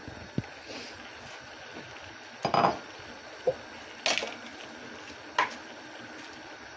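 A handful of separate knocks and clinks of kitchen utensils against a metal cooking pot. The loudest comes about two and a half seconds in and the others are spread through the rest.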